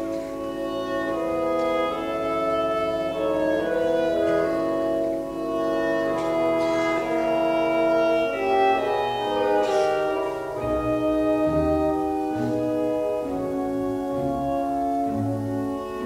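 Classical music as a background score, with long held notes throughout; deeper bass notes come in a little past halfway.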